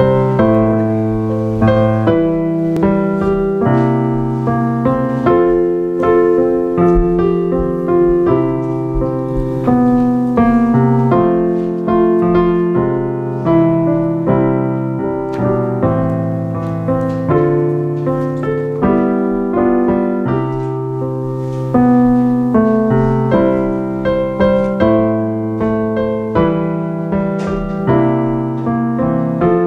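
Solo piano music: chords under a melody line, each note struck and left to fade.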